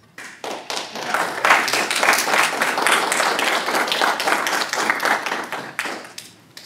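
A small audience applauding: a few scattered claps that build within a second into steady clapping, then die away near the end.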